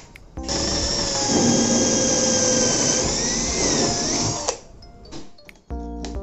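Power drill running for about four seconds with a high whine, its pitch wavering shortly before it stops.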